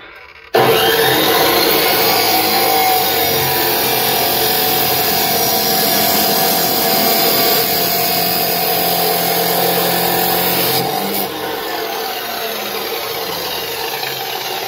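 Harbor Freight 14-inch abrasive chop saw starting up and grinding through a steel tube, a loud steady grinding with a hum under it. About eleven seconds in it drops in level as the wheel comes through the cut and keeps spinning.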